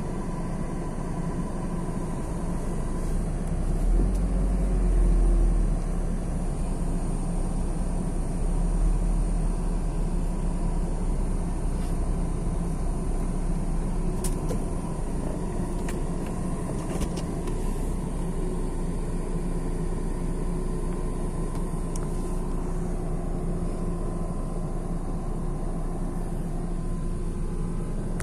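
Steady low rumble of street traffic and vehicle engines, with wind buffeting the microphone twice in the first ten seconds.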